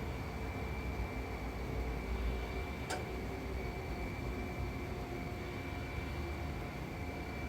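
Steady background hiss with a low rumble and a few faint steady tones, broken once by a sharp click about three seconds in.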